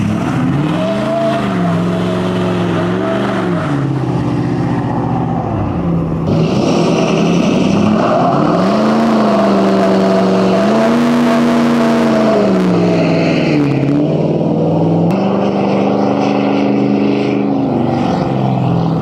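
Ford 6.7 L Powerstroke V8 turbodiesel in a lifted Super Duty pickup, revved up and down again and again, its engine note rising and falling several times. A steady higher tone runs over it.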